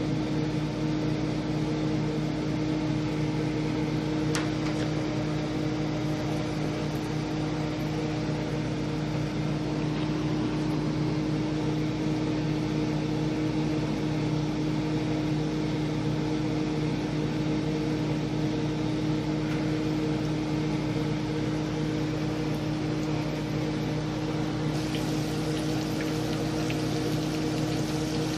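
Battered fish pieces frying in hot oil in a pan, a steady sizzle, under a constant low motor hum. About 25 seconds in the sizzle becomes brighter and hissier.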